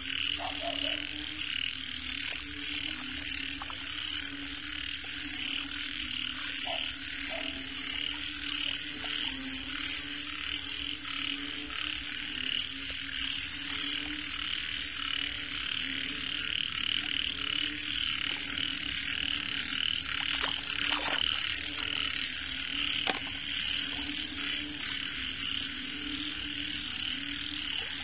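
A chorus of frogs calling without a break: low croaking with a steady high trill above it. A few short clicks come about two-thirds of the way through.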